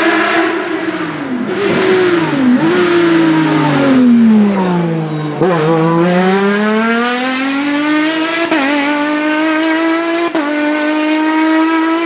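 Race car engine braking into a bend: its pitch falls, with short throttle blips on the downshifts. About five seconds in it pulls hard away, the pitch climbing steadily with quick upshifts twice near the end.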